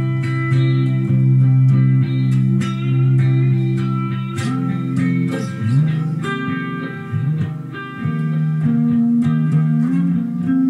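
Electric guitar played solo: low notes ring under picked notes higher up, with slides from note to note about six seconds in and again about a second later.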